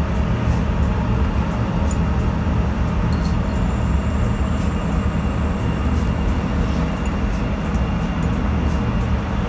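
A steady low mechanical rumble, like a fan or machine running, with a few faint clicks over it.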